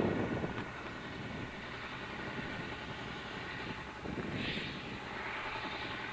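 A steady engine drone, like heavy machinery running, holding at an even level throughout.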